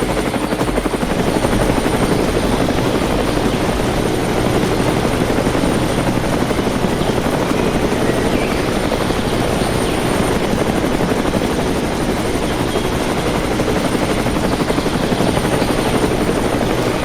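Small electric motor of a homemade mini tractor/bulldozer model running steadily, a continuous whirring buzz.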